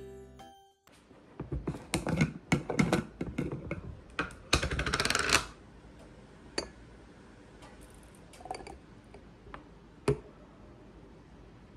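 Laptop keyboard typing: a few seconds of quick keystrokes that end in a fast flurry, followed by a few scattered soft clunks of glass jars and one sharp knock near the end as a thick smoothie is poured.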